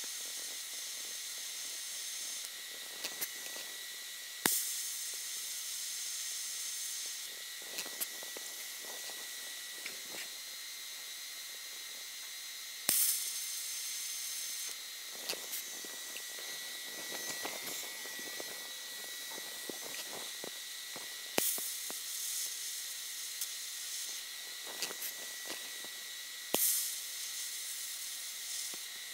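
TIG welder arc hissing steadily while a thin sheet-metal patch is welded in, with a steady high whine underneath. The hiss surges louder and brighter four times.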